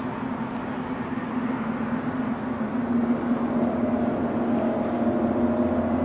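Low, steady droning hum of several held tones, with a higher tone and a deeper one swelling in about halfway through: one of the unexplained groaning 'strange sounds' reported in January 2012.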